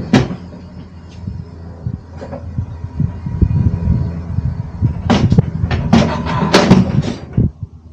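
A box truck's liftgate lowering a crated load on a pallet jack to the ground, with a steady low mechanical hum. A series of loud clanks comes about five to seven seconds in, as the platform lands.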